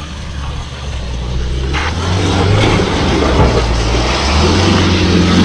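Off-road vehicle's engine running under load on a slippery mud track, getting louder about two seconds in as it is given more throttle, with rough tyre-and-mud noise. A single short knock comes just before the rise.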